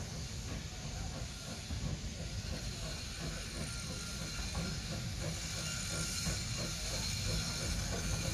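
Steam locomotive letting off steam with a steady hiss over a low rumble; the hiss grows stronger about five seconds in.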